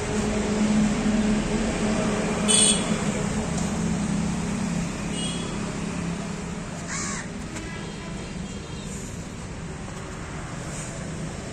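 Crows cawing a few times, the loudest call about two and a half seconds in, over a steady low hum.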